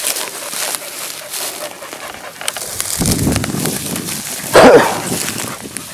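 Dry reeds and brush crackling and rustling as hunting dogs push through a reed bed, with one short, loud dog cry about four and a half seconds in.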